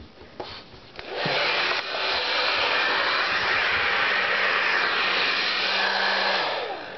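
Handheld hair dryer switched on about a second in and blowing steadily, then shut off and winding down near the end.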